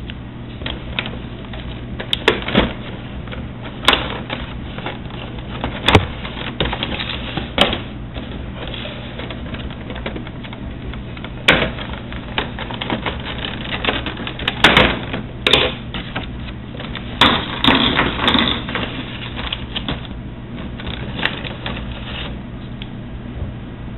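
Hands unboxing a boxed action figure: irregular clicks, knocks and rustling from handling the packaging and figure, with the loudest bursts clustered around the middle, over a steady low hum.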